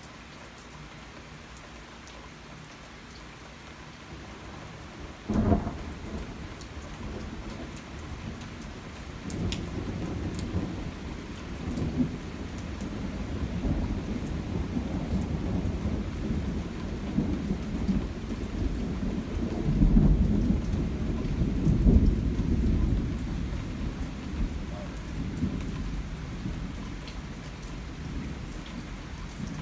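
Steady rain with thunder: a sharp thunderclap about five seconds in, then long rolling thunder that builds to its loudest about two-thirds of the way through and slowly fades.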